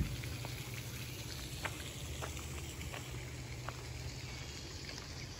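Outdoor water ambience: a pond's spray fountain splashing steadily over a low steady hum, with short high chirps every second or so.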